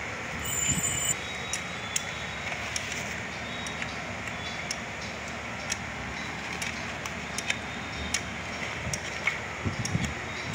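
Scattered light metallic clicks and clinks as metal pipes and fittings are handled and fitted onto a diesel engine, over a steady background hiss.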